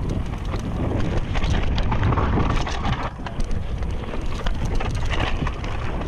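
Mountain bike running fast down a dry dirt trail: wind buffeting the camera microphone over tyre rumble, with many small rattles and knocks from the bike over the rough ground.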